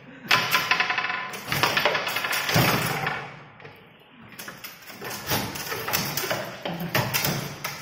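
Foosball game in play: a rapid clatter of knocks and taps as the plastic players on steel rods strike the ball and rattle against the table. It comes in flurries, with a lull about four seconds in.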